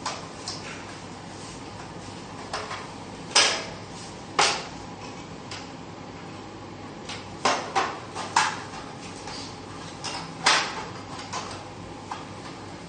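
Scattered sharp plastic clicks and knocks, a dozen or so at irregular intervals, from a printer's plastic housing being handled and its cover clips pried apart.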